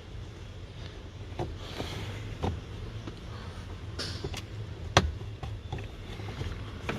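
Plastic clicks and knocks as the cabin air filter cover is unclipped and the filter is pulled out of its housing behind the glovebox, the sharpest click about five seconds in, over a steady low hum.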